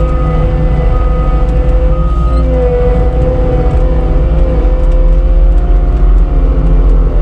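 CAT 246D skid steer's diesel engine running under load while pushing snow, with a steady whine over the engine's rumble. A backup alarm beeps three times, about once a second, then stops about two and a half seconds in.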